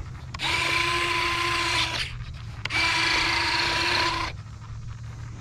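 A small electric motor on an E-flite F-16 model jet whirring in two short bursts at a steady pitch, each about a second and a half long and starting and stopping sharply.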